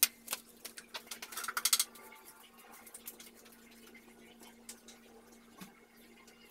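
A few sharp clicks and a brief rattling scrape as objects are handled in the first two seconds. After that there is a faint steady hum with a few light taps.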